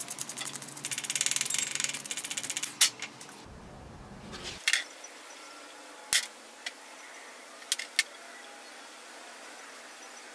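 Sandpaper rubbed quickly back and forth over a wooden hand-plane knob, a fast run of scratchy strokes for the first two and a half seconds. Then it goes quieter, with a few sharp taps.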